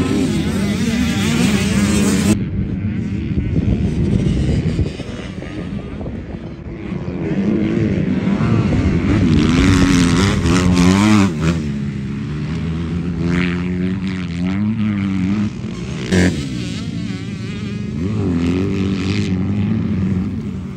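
Motocross dirt bikes running on the track, their engines revving up and dropping back again and again as the riders work the throttle. The sound changes abruptly about two seconds in and again near sixteen seconds.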